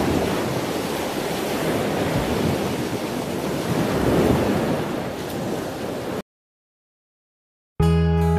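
Ocean surf breaking and washing up a beach in a steady rush with surges, which cuts off suddenly about six seconds in. After a second and a half of silence, acoustic guitar music starts near the end.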